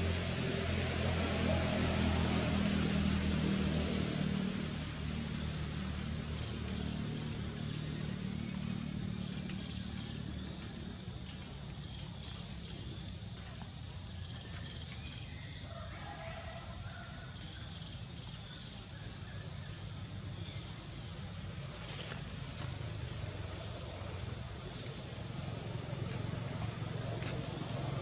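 Steady high-pitched drone of insects. A low hum sits underneath in the first several seconds and fades away.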